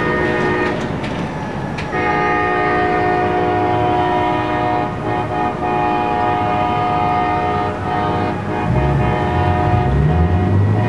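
Diesel locomotive air horn on CSX GP40-2 #4403 sounding for a grade crossing, several steady tones together as a chord. One blast ends under a second in, and after a short gap a long blast is held. A low rumble swells near the end.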